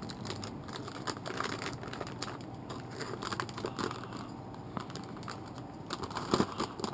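Plastic packaging bags crinkling and rustling with scattered light clicks as hands handle bagged drone frame parts, with a couple of louder knocks about six seconds in.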